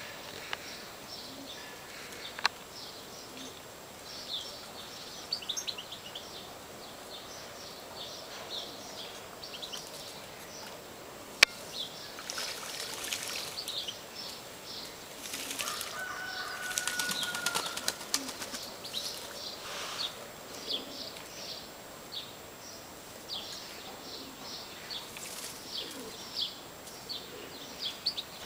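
Tumbler pigeons flapping their wings, one bathing in a shallow water tray, in noisy bursts around the middle. High-pitched bird chirps run throughout.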